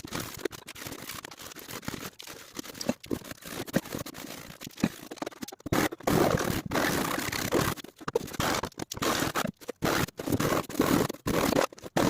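Irregular scratching and scraping strokes, with short breaks between them, growing louder and denser from about halfway through.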